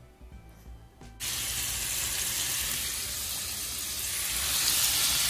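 Food frying in a pan on the stove: a steady, loud sizzling hiss that starts suddenly about a second in.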